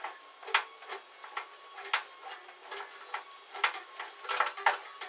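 Allen key being turned in a screw on a bandsaw's upper wheel cover: a run of small, irregular metal clicks and ticks, several a second, as the key is worked and reset.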